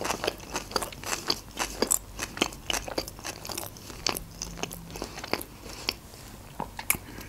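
A person chewing a mouthful of homemade sushi-style roll (lavash, nori, red fish, cream cheese, cucumber) with the mouth closed, close to the microphone: a steady run of crisp crunches and mouth clicks, several a second, from the cucumber inside.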